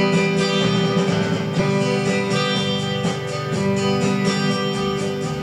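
Electric guitar, a Fender Telecaster played through a Fender Blues Deluxe tweed reissue amp, strumming a steady chord rhythm.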